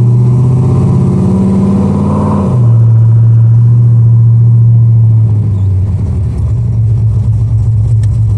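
Car engine pulling under acceleration, its pitch climbing slowly and then dropping abruptly about two and a half seconds in as the 4R70W automatic transmission upshifts, after which it runs steadily at the lower pitch.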